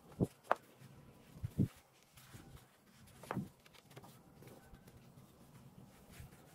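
Large glossy photobook pages being turned and set down flat on a wooden table: a few short paper slaps and taps, the strongest about a second and a half in and again just past three seconds, then only soft paper handling.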